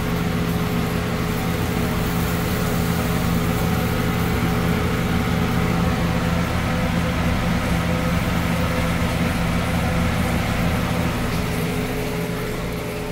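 A steady low mechanical hum, like a motor running, with an even hiss over it.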